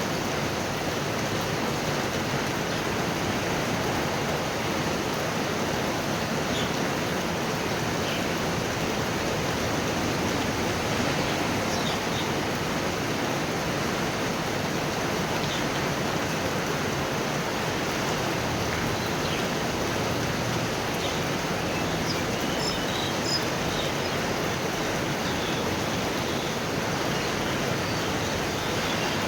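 Heavy thunderstorm rain falling steadily, an even hiss with no thunder heard.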